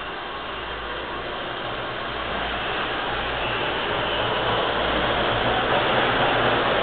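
Hawker Siddeley H5 subway train pulling out of the station alongside the platform. Its running noise grows steadily louder as it gathers speed.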